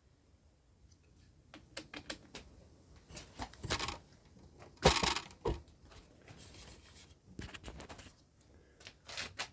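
Handling noises in a workshop: irregular knocks, clicks and scraping rustles of wood and tools being moved and fitted. The loudest is a sharp knock about five seconds in.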